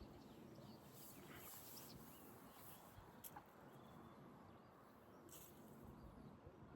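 Near silence: faint outdoor ambience with scattered short bird chirps and a sharp click about three seconds in.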